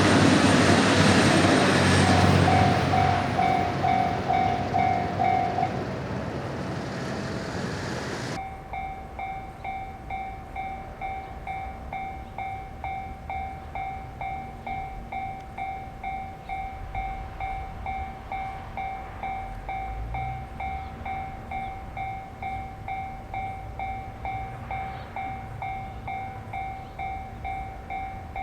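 A train running past a level crossing, its noise loud for the first eight seconds or so, with the crossing bell heard through it. The train noise stops abruptly, and the Japanese level-crossing bell goes on ringing steadily, "kan kan", about two strikes a second.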